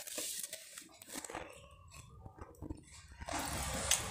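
Close-up eating sounds of roasted chicken: irregular chewing, crunching and wet mouth clicks, with a breathy hiss near the end.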